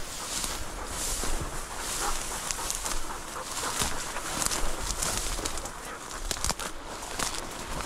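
Dry prairie grass swishing and rustling against a walker's legs, in surges at about one stride a second.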